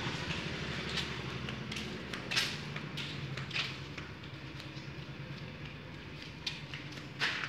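Footsteps and light knocks while walking across a concrete floor, over a low steady engine hum that slowly fades.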